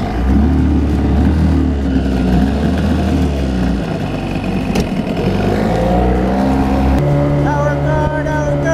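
Outboard motor on a jon boat running and being throttled up as the boat gets under way, its pitch shifting a few times. Background music comes in near the end.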